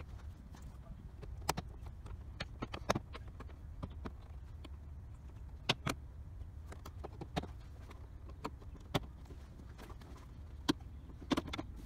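Plastic push fasteners of a Jaguar X300 rear door panel snapping loose one after another as a plastic pry tool levers the door card off: about eight sharp clicks and pops at uneven intervals, over a steady low rumble.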